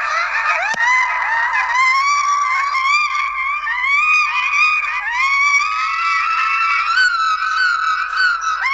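A dense chorus of many overlapping high, voice-like cries that keep swooping upward in pitch, merging into a continuous honking din. This fits digitally stacked sneeze sounds.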